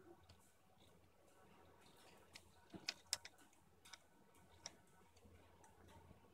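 Near silence: a faint steady low hum with a few light ticks, most of them around three seconds in, as the five-bar parallel robot arm's two commercial DC motors drive the pen linkage.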